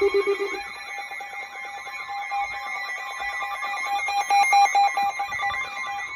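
Electronic weather-alert alarm tones, several at once: a warbling, siren-like tone sweeping up and down about three times a second over steady and rapidly pulsing beeps. A lower pulsing beep cuts off about half a second in. The alarm marks an incoming severe weather warning.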